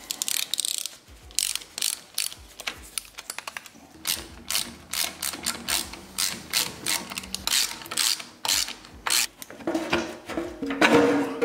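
Hand socket ratchet wrench clicking in repeated bursts, stroke after stroke, as a nut is run off on the air intake of an International 300 Utility tractor's engine. Near the end a louder clatter with a ringing tone comes in.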